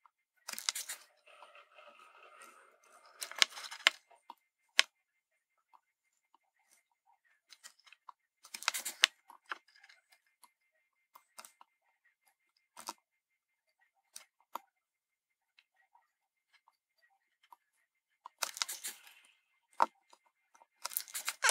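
Small clicks, taps and brief rustles of a circuit board, solder wire and soldering iron being handled during hand soldering of LEDs, in scattered groups, with a faint steady high tone underneath.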